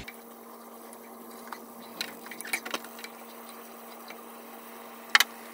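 Wooden spoon stirring gochujang broth in a pot, giving scattered light clicks and taps against the pot, several close together in the middle and a sharp double knock near the end, over a steady low hum.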